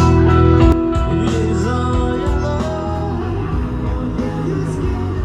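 Background music: a band-style song with guitar and drums, dropping a little in level about a second in.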